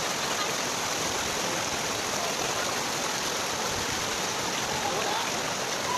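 Rushing water, a steady even rush with no break.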